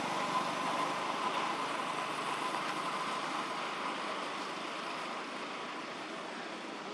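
A passing road vehicle, its engine and road noise slowly fading away.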